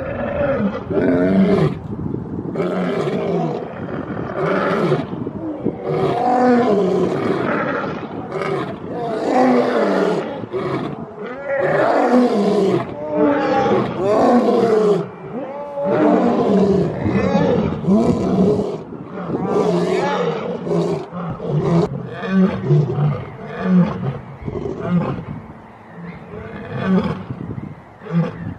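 Lion roaring and growling, one call after another without a break.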